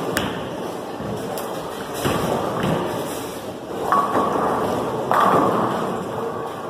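Bowling alley: a bowling ball rolling down the lane with a steady rumble. Pins crash in sudden clattering bursts about four and five seconds in, the loudest sounds here.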